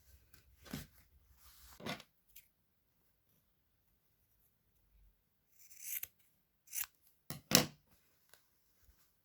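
Jacket and fabric strip being handled and pinned together: a handful of short rustles and taps, with a hissy rustle about six seconds in and the loudest near seven and a half seconds.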